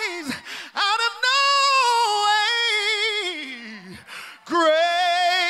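A man sings a cappella, without accompaniment, into a microphone, in gospel style. He holds a long note that slides downward about three seconds in, takes a short breath, then starts a new phrase with a wide vibrato near the end.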